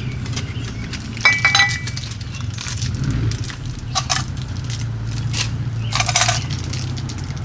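Metal electrical box and its fittings clinking as they are handled: a ringing clink about a second in, then sharper clinks around four and six seconds. A steady low hum runs underneath.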